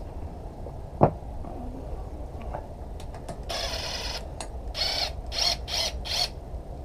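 A single sharp knock about a second in, then a hand ratchet clicking in strokes: one long run, then three or four short ones.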